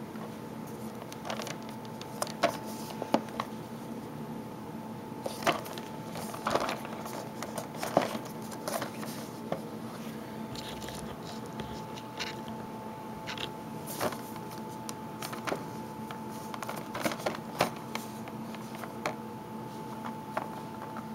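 Cardboard figure box with a plastic window being handled and turned in the hands, giving irregular taps, clicks and light rustles over a steady background hum.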